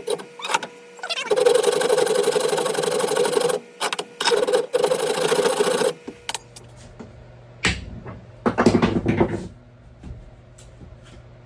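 Wood rasp scraping the wooden end of an axe handle to take it down to fit the head. There are two long spells of rasping, then a few shorter scrapes near the end.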